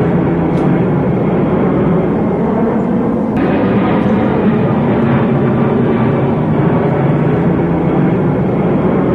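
Toy fighter plane's electronic jet-engine sound effect playing steadily, a loud rushing noise with a low hum through it.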